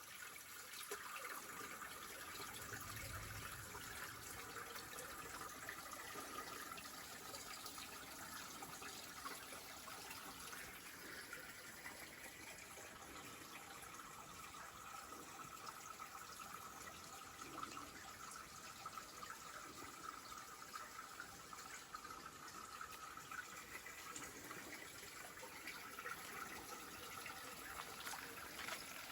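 Shallow forest stream trickling and flowing, a faint, steady water sound.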